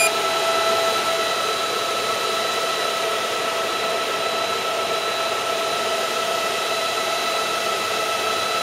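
Cooling fans of a Chenbro RM91250 server chassis (80 mm and 120 mm fans plus the redundant power-supply fans) running flat out just after power-on. A loud, steady rush of air with a constant high-pitched whine, a little louder in the first second before settling.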